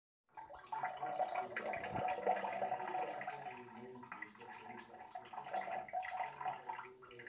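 A stream of water trickling and splashing into a toilet bowl. It starts suddenly and grows weaker toward the end.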